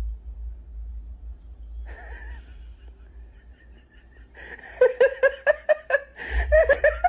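A person laughing in a quick run of short 'ha-ha' pulses, about six a second, starting about five seconds in, with more laughter near the end. A low rumble sits underneath in the first part.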